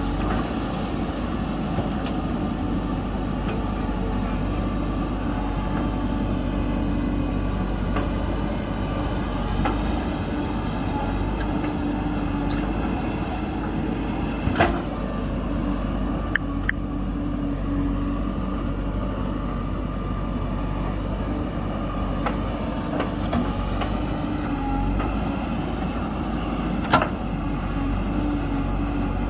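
Diesel engine of a JCB backhoe loader running steadily while working, with a few sharp knocks, the loudest about halfway through and another near the end.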